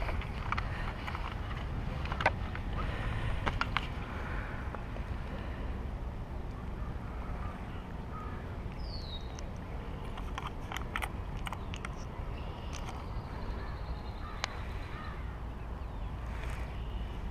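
Steady low outdoor rumble with scattered small clicks from handling the fish gripper and camera, and one short falling bird chirp about nine seconds in.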